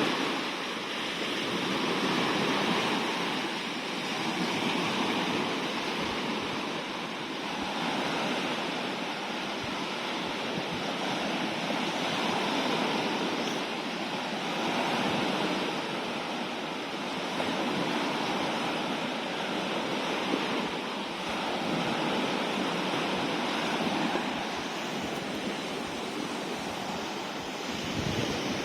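Sea waves breaking and washing onto the shore, a steady surf that swells and eases every few seconds.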